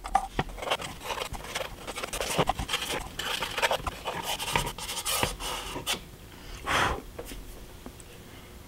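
A paintbrush scrubbing on soft pastel chalk sticks and brushing the pastel powder onto a paper model roof: a run of quick, dry scratchy strokes that stops about six seconds in. A short breathy hiss follows about a second later.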